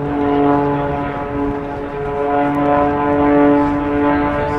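Modified Pitts aerobatic biplane's piston engine and propeller droning steadily in a steep climb, the tone holding nearly even with a slight dip about two seconds in.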